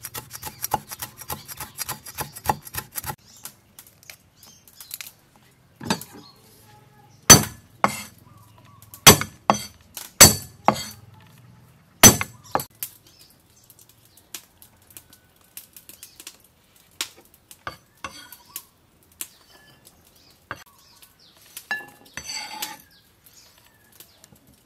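Cleaver chopping on a wooden chopping block: a fast run of strokes at first, then several separate loud chops on garlic. A short clinking clatter comes near the end.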